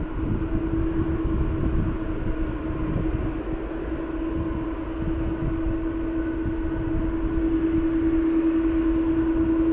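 Pratt & Whitney PW4070 turbofans of a Boeing 777-200ER at taxi power, a steady hum over a low rumble. The hum grows a little louder over the last couple of seconds.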